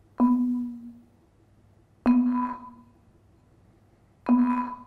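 A marimba bar struck three times, about two seconds apart, each time on the same low note, while a soft rubber mallet rests against the bar. Each note rings briefly with a buzz as the bar vibrates against the resting mallet, an extended technique from contemporary prepared-marimba writing.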